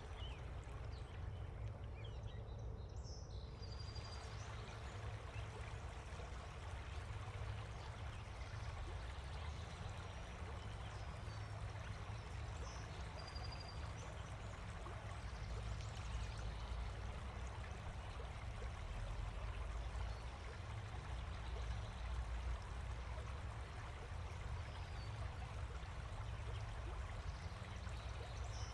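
Steady outdoor ambience: an even rushing noise over a low rumble, with two brief high chirps about ten seconds apart.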